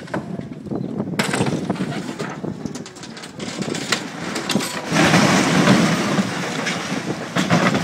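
An earthquake-damaged building's rooftop structure and parapet collapsing during demolition: crashing, crumbling masonry with many scattered knocks. It starts about a second in and grows louder about five seconds in.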